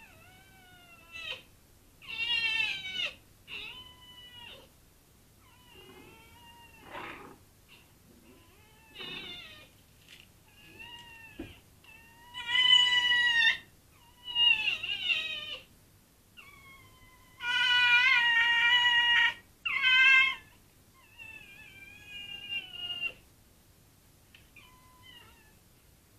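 Cat caterwauling: a series of drawn-out, wavering yowls with quiet gaps between, the longest about two seconds, loudest in the middle of the stretch.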